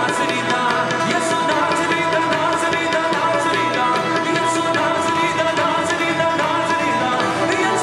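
Live worship band playing a Punjabi worship song, with a steady drum and cymbal beat.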